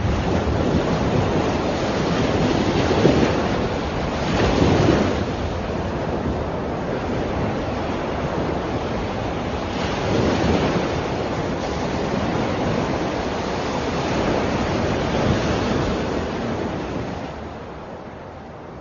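A steady rushing noise that swells louder a few times and fades away near the end.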